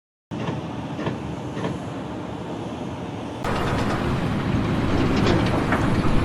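Steady noise of running machinery with scattered short knocks. It steps up louder about three and a half seconds in.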